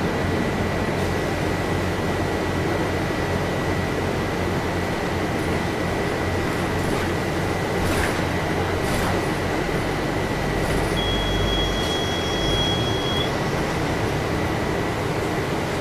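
Inside a city bus driving on wet streets: steady engine and road noise with a thin whine running under it. A few rattles sound around the middle, and a high beep lasting about two seconds comes later.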